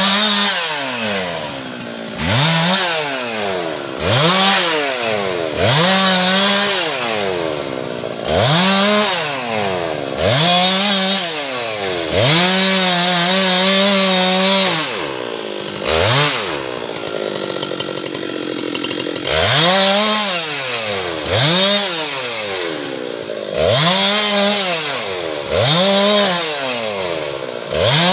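Husqvarna 390XP two-stroke chainsaw with a Stihl .404 chain cutting teak. Its engine revs up and drops back in short bursts, about one every two seconds. About halfway through it holds high for a few seconds, then runs low for a few seconds before the bursts start again.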